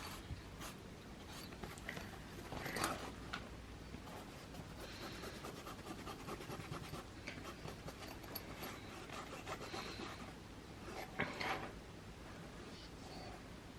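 Felt-tip marker rubbing and scratching across a surface as an area of background is coloured in, with two louder strokes, one about three seconds in and one about eleven seconds in.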